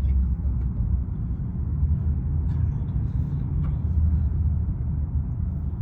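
Steady low rumble of road traffic carried into a tunnel, with no distinct passes or engine notes.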